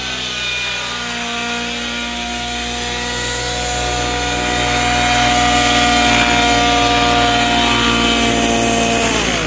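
Two-stroke O.S. 105 HZ-R glow engine with tuned pipe in a Thunder Tiger Raptor G4 RC helicopter, running at a steady governed 1930 rpm headspeed on a slightly rich setting, with the rotor and engine whine getting louder as it comes close. Near the end the pitch falls as the engine winds down.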